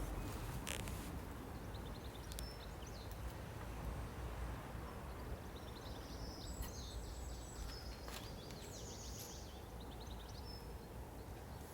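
Outdoor ambience: small birds chirping and twittering in short bouts over a steady low background rumble, with a few faint ticks.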